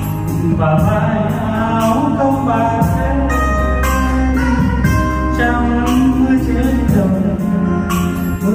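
A man singing a Vietnamese homeland song into a microphone over backing music with a steady beat.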